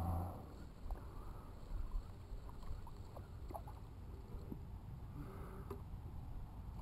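Faint water lapping against a kayak hull, with a low bump at the start and a few light clicks and knocks as the fishing rod and reel are handled.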